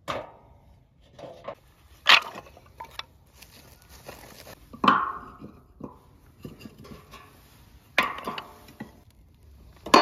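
Sticks of firewood clunking and clattering as they are handled and dropped, a few sharp knocks a couple of seconds apart with smaller clacks between, some with a short ring.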